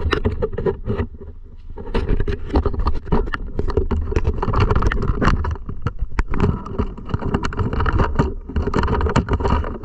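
Radio-controlled car driving, a dense crackle and rattle over a low rumble, with a brief dip about a second in.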